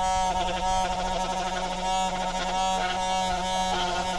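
Handheld rotary tool running steadily as its small bit grinds and shapes a small wooden intarsia piece, with background music playing over it.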